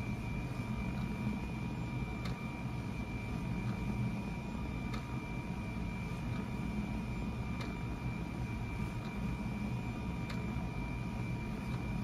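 LEGO SPIKE Prime motors running with a steady high whine as they drive a mechanical bird's flapping wings, with a light click roughly every three seconds.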